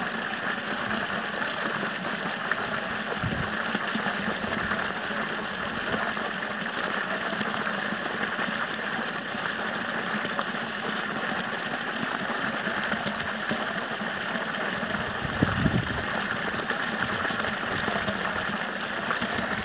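Water gushing steadily out of a borewell pipe and splashing onto the ground, over a steady mechanical hum like a running engine. A brief low surge comes about three-quarters of the way through.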